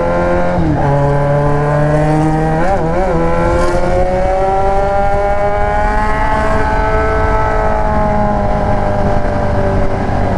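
Yamaha XJ6's 600 cc inline-four running through an Atalla aftermarket exhaust under way. The engine note climbs slowly for about six seconds, wavers briefly about three seconds in, then eases off a little toward the end.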